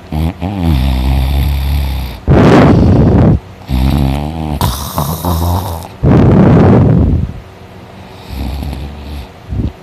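A man snoring loudly while asleep on his back: long buzzing snores, each followed by a louder, harsher breath of about a second, twice over, then a fainter snore near the end.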